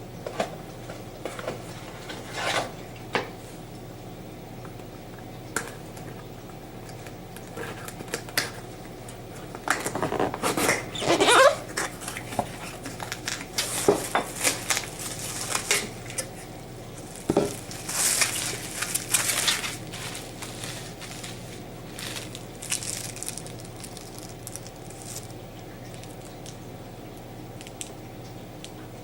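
Small tools and phone parts clicking, tapping and scraping in irregular clusters during a hands-on phone screen repair, busiest about a third of the way in. A steady low hum runs underneath.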